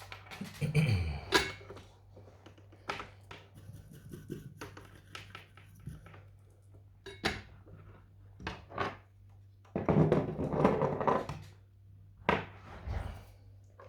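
Scattered knocks and clicks of small tools and parts being handled on a workbench, with a longer rough scraping rustle a little after halfway, over a faint steady hum.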